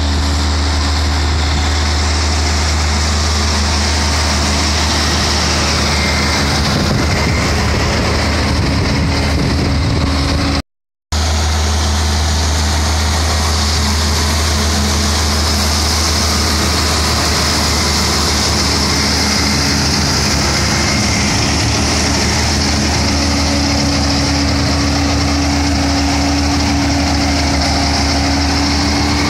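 John Deere 4430's turbocharged six-cylinder diesel running steadily, pulling a Gehl mower conditioner that cuts and conditions thick, tall hay grass. A loud, continuous drone with a steady low hum; the sound cuts out briefly about eleven seconds in.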